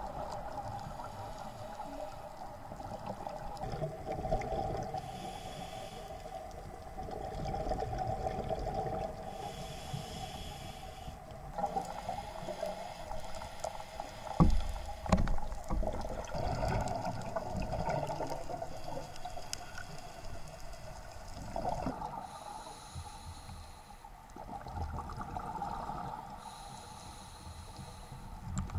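Scuba diver breathing through a regulator underwater, heard inside an action camera's housing: a short hiss with each inhalation every few seconds and rumbling bubble bursts on the exhalations, loudest about halfway through, over a steady underwater hum.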